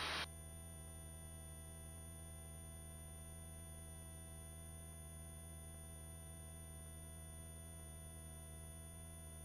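Faint steady electrical hum made of many even tones, from the helicopter's headset intercom audio feed while its voice-activated microphones are closed. It steps down a little a moment in and then holds unchanged.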